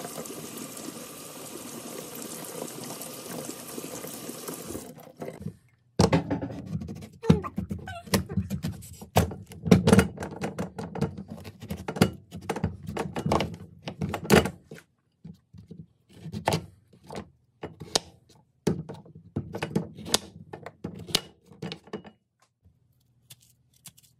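A kitchen tap runs steadily over a squash being rubbed clean in a stainless-steel sink for about five seconds. Then a squash is cut up on a wooden cutting board with a knife and spoon: irregular knocks, thuds and scrapes that thin out toward the end.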